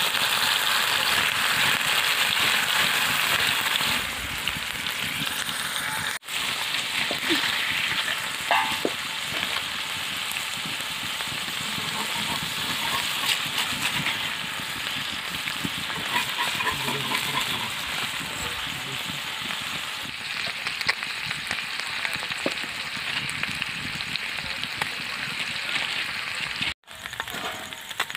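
Small whole river fish frying in hot oil in a pan, a steady sizzle with small crackles. The sizzle is loudest for the first few seconds as the fish go into the oil, then settles lower; it drops out briefly about six seconds in and again near the end.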